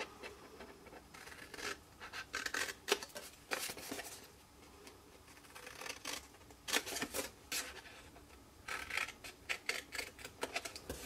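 Scissors snipping through cardstock in several runs of short, crisp cuts.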